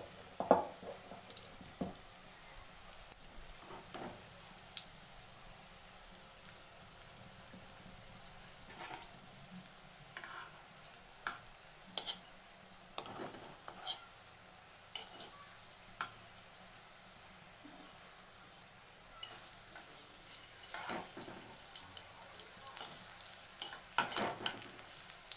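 Batter-coated onion rings (onion pakoda) deep-frying in hot oil in an aluminium kadai: a steady sizzle with scattered crackles. A metal spoon taps and scrapes against the pan now and then as the rings are turned.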